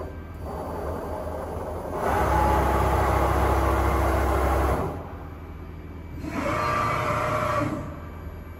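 Deckel FP 4A universal milling machine running under power: a steady low hum, with two louder spells of gear whine, one starting about two seconds in and lasting nearly three seconds, a shorter one near the end.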